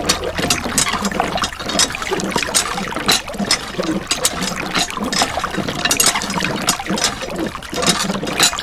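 Thin stream of water from a miniature hand pump's spout pouring and splashing continuously into a shallow plastic dish of water.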